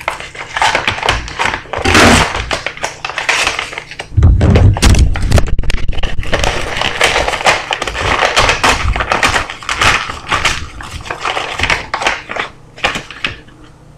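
A mailing envelope being torn open and its packaging crinkled and handled, with many small clicks and rustles and a run of heavy thumps about four seconds in.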